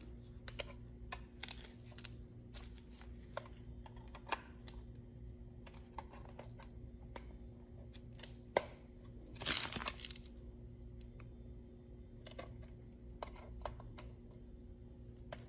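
Faint clicks, ticks and scrapes of hard plastic as the black bezel of a Uconnect 8.4-inch radio is pried off its clips, with a longer crackling scrape about nine and a half seconds in.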